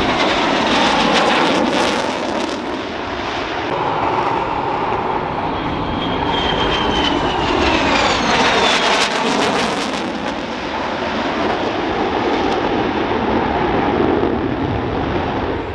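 EA-18G Growler's twin General Electric F414 turbofan engines in a loud jet roar as it makes a close pass, with a whine that falls in pitch as it goes by, about six to eight seconds in. Near the end it climbs away with its afterburners lit.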